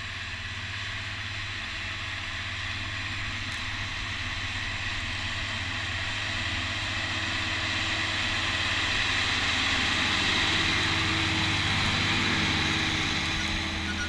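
County 1454 four-wheel-drive tractor's diesel engine working under load as it pulls a four-furrow reversible plough. It grows louder as the tractor approaches and passes close by near the end.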